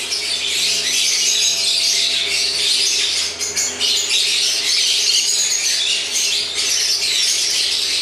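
A flock of caged conures chattering and squawking together in a breeding aviary, a dense continuous high-pitched din with no pause.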